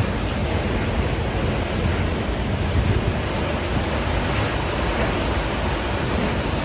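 Steady rushing noise with a deep low rumble, even and unbroken throughout.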